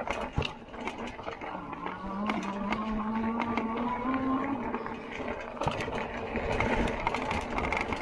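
Lectric XP e-bike's hub motor whining, its pitch rising slowly for about three seconds as the bike speeds up, then fading. Rattles and knocks run throughout.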